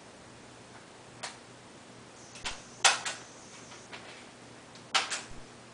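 Stapler clacking as it drives staples through a sheet of paper into a brown paper bag: several sharp clicks, a single one, then a loud cluster about three seconds in and a pair near the end.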